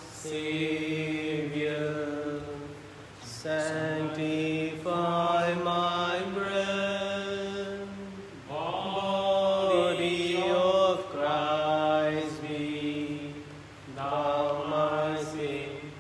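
A church hymn sung in slow, long-held phrases by a single voice, four phrases with short breaks between them.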